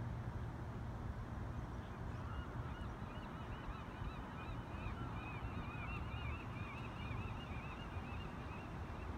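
A flock of birds calling: many short calls that rise and fall, overlapping, starting about two seconds in, over a steady low rumble.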